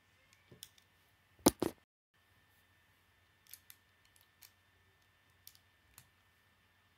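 Plastic Lego pieces clicking as they are pressed and snapped onto the model. Two sharp snaps come about one and a half seconds in, followed by scattered lighter clicks.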